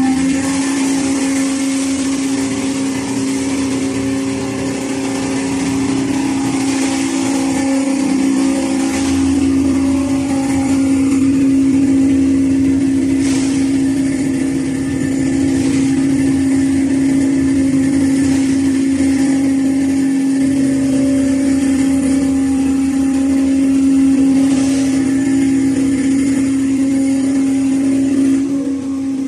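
Y81K hydraulic scrap metal baler running, its hydraulic power unit giving a steady, loud hum on one fixed pitch, with a few brief knocks from the metal being worked.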